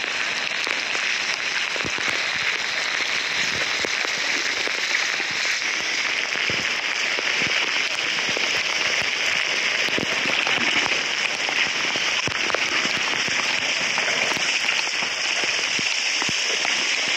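Heavy rain pouring down onto a flooded road, a dense, even hiss that holds steady throughout.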